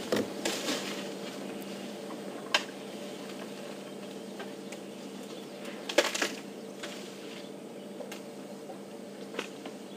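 Elephants feeding on marula branches: a few short, sharp snaps and cracks of breaking wood, the loudest a quick cluster about six seconds in, over a steady low hum.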